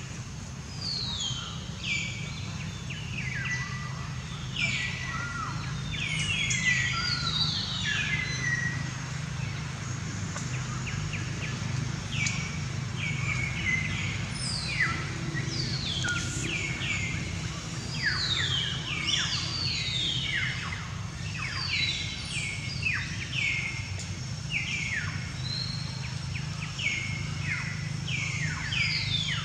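Birds calling: many short, falling chirps, overlapping and repeating throughout, over a steady low hum.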